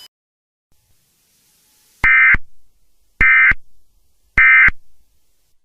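Emergency Alert System end-of-message code: three identical short bursts of digital data tones, each about a third of a second long and about a second apart. They mark the end of the alert message.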